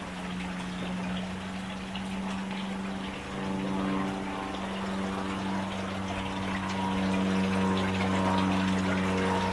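Garden water fountain splashing steadily, with a steady low hum under the running water.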